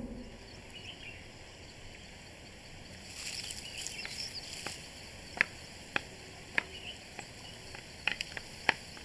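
Faint outdoor nature ambience: high chirping from about three seconds in, then a run of sharp clicks roughly every half second to second through the second half.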